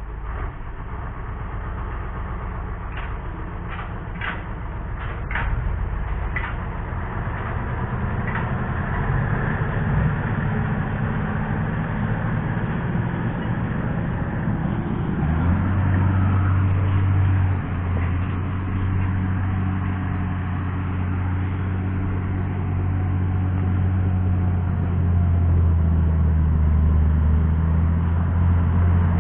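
Caterpillar bulldozer's diesel engine running and slowly getting louder, with a stronger low hum setting in about halfway through. A handful of sharp knocks sound between about three and six seconds in.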